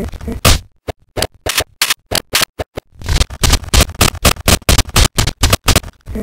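Choppy, stuttering snippets of an animation's imported audio track, cut into short bursts as the app's timeline is scrubbed frame by frame; the bursts come faster from about halfway through.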